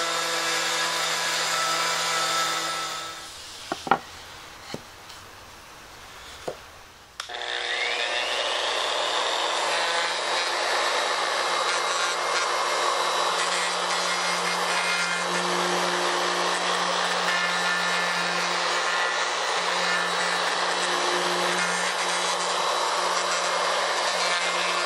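Porter-Cable router running and cutting wood while following a template to rout the recess for a router plate in a table top. The cutting noise drops away about three seconds in, leaving a few light knocks. About seven seconds in it starts again with a rising whine and runs steadily through the rest.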